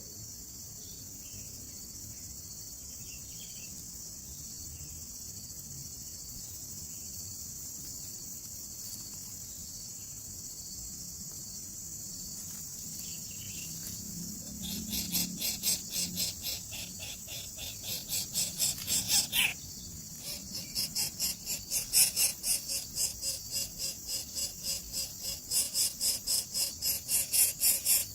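Steady high-pitched insect hiss in the background; about halfway in, nestlings start rapid, raspy begging calls, about three a second and loud, pausing briefly before going on.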